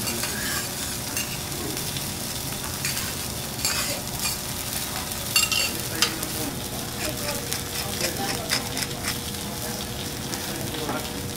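Food sizzling on a hot teppanyaki iron griddle, with sharp metal clicks and scrapes of utensils on the plate several times.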